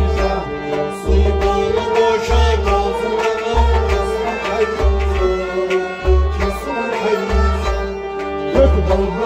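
Instrumental passage of Kashmiri folk music: bowed sarangi playing a sustained melody over a hand drum beating deep strokes about once a second.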